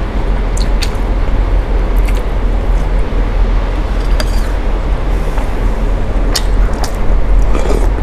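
Noodle soup being eaten: short clicks and slurps at irregular moments, over a loud, steady low rumble.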